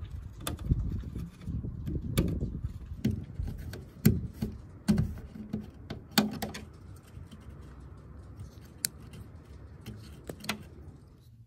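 Irregular plastic clicks and knocks as an Audi Q3 washer jet assembly is pulled from the bonnet and its washer hose and wiring connector are unclipped, over a low rumble of hand-handling noise.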